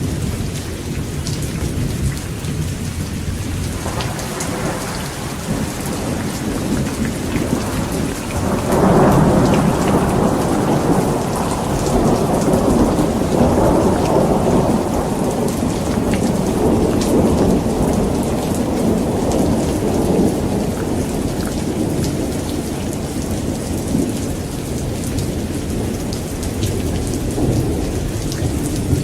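Steady heavy rain with a long roll of thunder: a faint rumble begins about four seconds in, swells loudly at about nine seconds and rolls on for some ten seconds before fading back under the rain.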